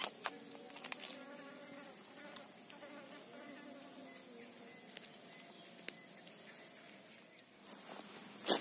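A steady high-pitched drone of insects, with a few sharp clicks of a knife working fish on a wooden stump. Near the end, louder rustling of footsteps through dry grass and leaves.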